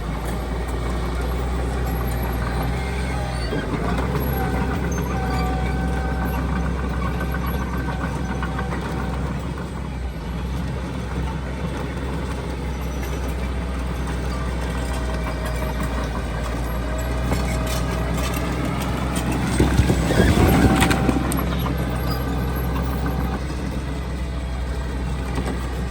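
Heavy diesel construction machinery running steadily, a low engine drone with a faint held whine above it. About twenty seconds in there is a louder rush of noise lasting about a second.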